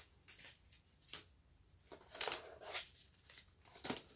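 Paper leaflets and a cardboard box being handled: several short rustles and scrapes, the loudest around the middle.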